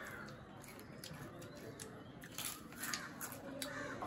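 Lay's potato chips crunching as they are bitten and chewed, mixed with the crinkle of the foil chip packets: quiet, irregular crackles, thicker in the second half.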